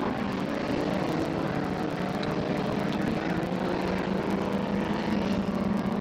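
Autocross race cars' engines running hard on a dirt track: a steady, continuous engine note from several cars at once, with no single pass standing out.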